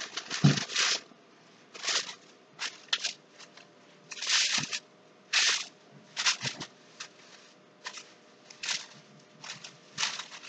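Plastic garbage bag rustling and crinkling in short, irregular bursts as a painted canvas is slid inside it.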